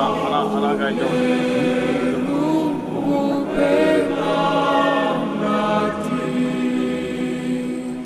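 Choral music: several voices singing held notes together.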